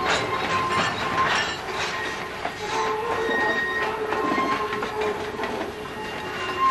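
Freight train hauled by an Alco S4 switcher rolling past, with wheels squealing in held high tones that fade in and out over the steady clatter of the cars.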